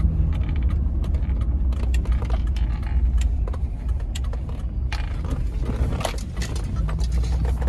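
Vehicle running, heard from inside the cabin: a steady low engine and road rumble with scattered light clicks and rattles.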